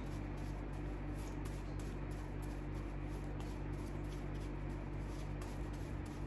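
Steady low electrical hum with a faint even hiss: room tone with no distinct event.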